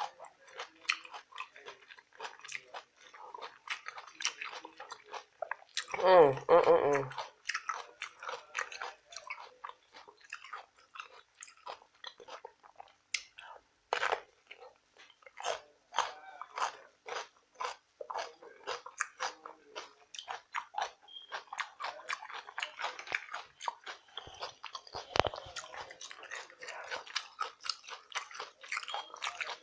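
Close-miked wet chewing and lip-smacking while eating rotisserie chicken, with many small clicks and some crunches throughout. About six seconds in there is a brief hummed voice sound, the loudest moment.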